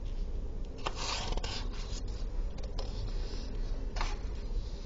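Sheets of paper being slid and swapped on a desk, a few short rustles and scrapes of paper about a second in, around three seconds and again near the end.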